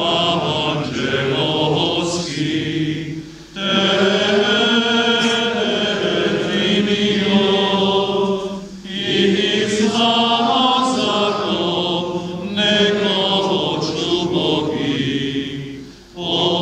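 Men's voices singing a funeral liturgical chant in long, sustained phrases, with short breaks for breath about three and a half, nine and sixteen seconds in.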